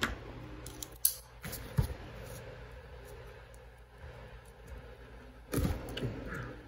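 Handling noise from a sealed hobby card box being picked up and turned over: a few short knocks and clicks, with a busier patch of handling noise near the end, over a faint steady hiss.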